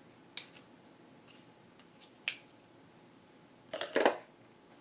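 Plastic marker barrels clicking and clattering against each other and the plastic organizer as markers are handled. There is a light click about half a second in, another a little after two seconds, and a louder cluster of clicks near four seconds in as a marker goes into a slot.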